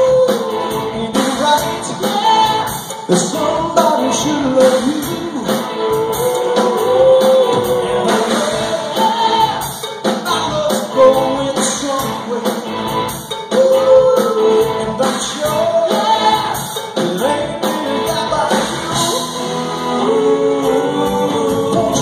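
A rock band playing live, with a singer's voice over electric guitars and drums.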